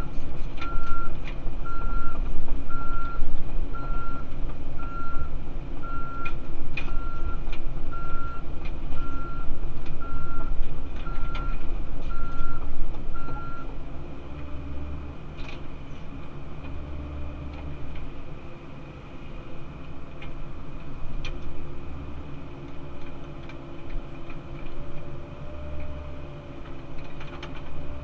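Cat 308CR excavator's diesel engine running, heard from inside the cab, with a backup/travel alarm beeping about once a second. The beeping stops about halfway through and the engine drops to a quieter, steadier note, with a few metallic clanks from the machine.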